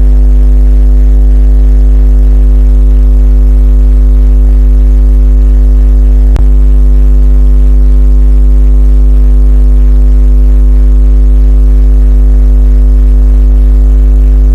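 Loud, steady electrical mains hum with its overtones on the tape's sound track, broken by a single click about six seconds in.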